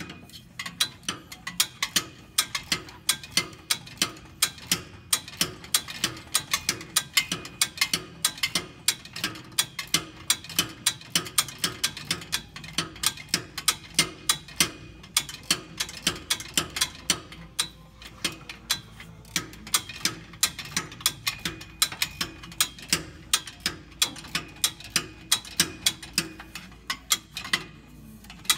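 Hand socket ratchet clicking steadily, about three or four clicks a second with brief pauses, as bolts on the newly mated transmission are run in.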